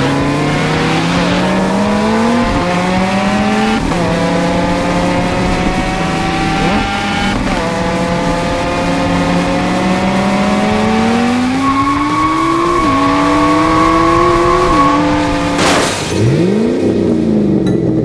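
Racing-car engine sound effect: engines revving up through the gears, the pitch climbing and dropping back at each shift. A high, steady squeal comes in the middle, and near the end a sudden loud rush of noise is followed by a pitch that swoops up and then falls away.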